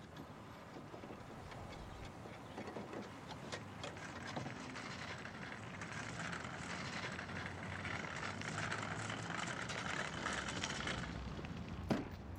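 A car's running noise that builds and grows louder, then drops away about eleven seconds in. Near the end comes a sharp click as a key goes into a car's trunk lock.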